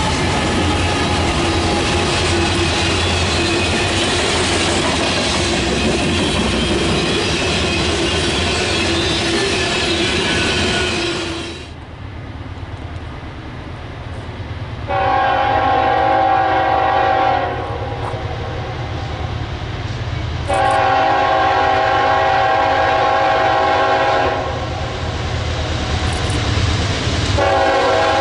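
A freight train rolling past with steady wheel-on-rail noise. After a cut, a diesel locomotive's horn sounds three blasts over a low engine rumble: two long blasts a few seconds apart, then a third starting near the end.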